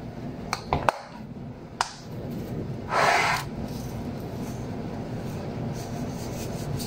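Plastic jar of dried Italian seasoning being handled: a few light clicks from its cap early on, then one short rustling shake of the herbs about three seconds in.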